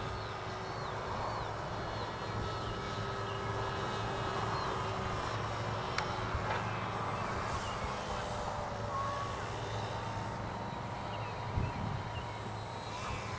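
Distant electric RC aerobatic plane flying overhead: its brushless outrunner motor and 12x6 propeller make a thin whine that shifts in pitch as the throttle changes.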